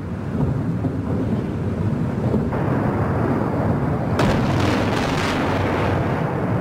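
Explosions from an aerial bombardment of a city, heard as a continuous low rumble. A louder blast swells in about two and a half seconds in, and a sharper, brighter one hits about four seconds in.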